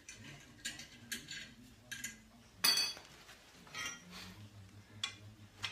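Light metallic clinks and taps of steel steering-linkage parts being handled and fitted on a welded steel frame, about half a dozen separate clinks, the sharpest about halfway through.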